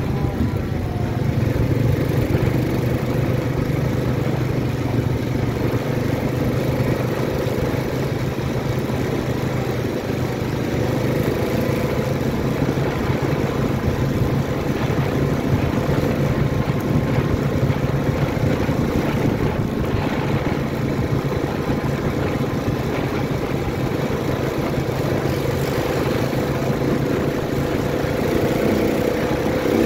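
ATV engine running steadily while riding along a snow-packed trail, under a constant rush of noise.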